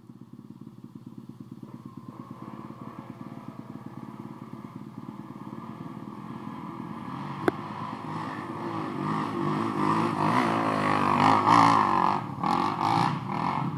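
Pit bike engines: one idling with a steady pulse, then from about seven seconds in a bike revving harder and getting louder, loudest around eleven to twelve seconds before easing off. A single sharp click about halfway through.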